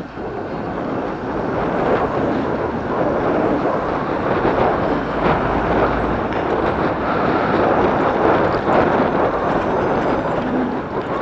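Wind and road rush on a camera riding along on a moving bicycle: a steady rushing noise that builds over the first couple of seconds, then holds.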